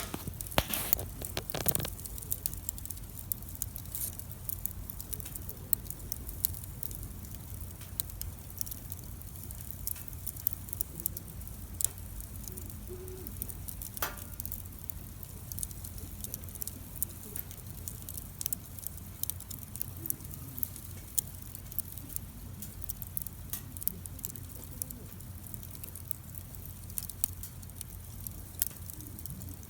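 Wood campfire crackling, with frequent irregular sharp snaps and pops over a low, steady rumble.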